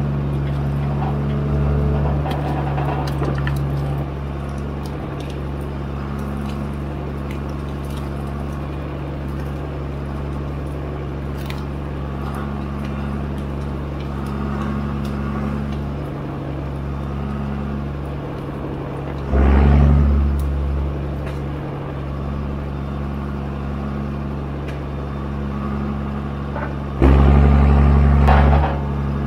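John Deere 1410D forwarder's 6.8-litre diesel engine running steadily, the loud pre-Eco3 version, with faint knocks throughout. Twice, about two-thirds of the way in and near the end, it rises sharply to louder running for a second or two.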